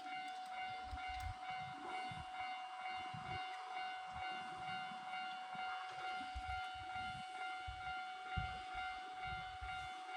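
A steady high-pitched whine held on one pitch, over faint hiss, with irregular low rumbles like wind buffeting the microphone.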